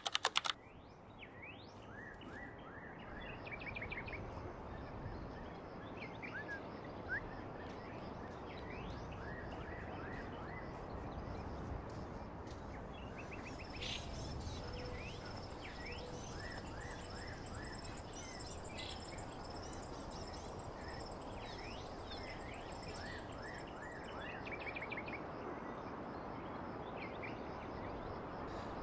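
Countryside ambience: small birds chirping and calling over a steady rushing background noise, with a steady high-pitched trill joining about halfway through.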